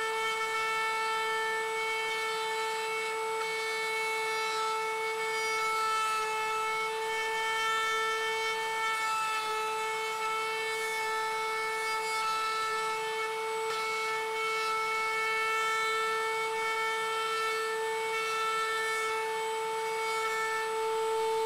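Table-mounted router running at a steady high whine while a spalted maple tabletop is turned against its pattern-following bit, trimming the edge true. The pitch sags slightly for a moment about nine seconds in.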